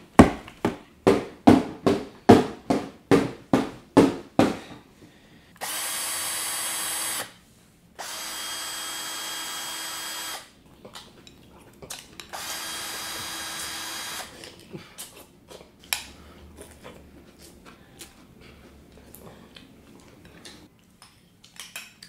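A hammer striking about a dozen times at an even pace, roughly two or three blows a second, then an orange cordless power drill running in three steady bursts of one and a half to two and a half seconds each. After that come softer, scattered clicks of a spoon in a bowl and loud chewing.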